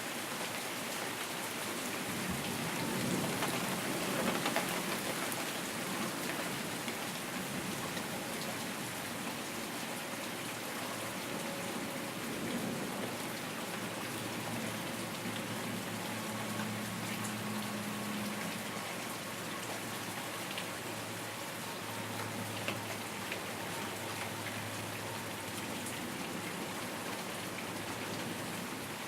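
Steady rain falling in a continuous hiss, with a low rumble of thunder swelling and fading about three to five seconds in.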